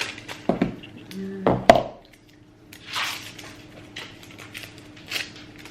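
Unboxing packaging and charger being handled: two dull knocks in the first two seconds, the second the loudest, then soft rustles of cardboard and paper.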